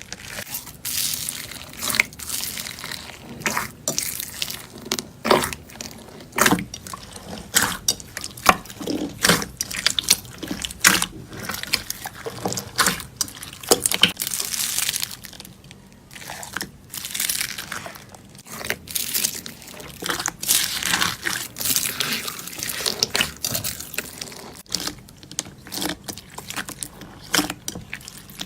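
Slime being squeezed and poked by hand: irregular wet squelches and sticky clicking pops, several a second at times.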